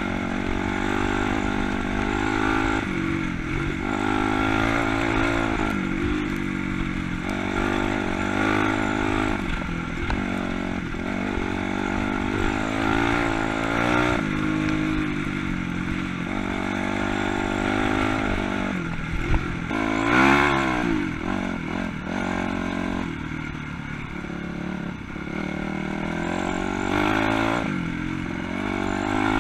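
Honda CRF250 dirt bike's single-cylinder four-stroke engine being ridden, its revs rising and falling again and again as the throttle opens and closes. A sharp knock stands out about two-thirds of the way through.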